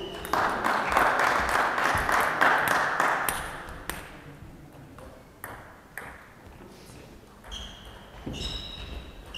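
A few seconds of spectators clapping and calling out after a point, fading away. Near the end, a celluloid table tennis ball clicks off bats and table as a new rally starts.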